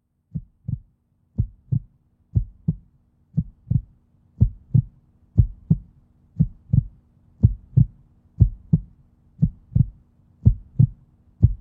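Heartbeat sound effect: paired low thumps, a lub-dub about once a second, growing louder over the first few seconds, over a faint steady hum.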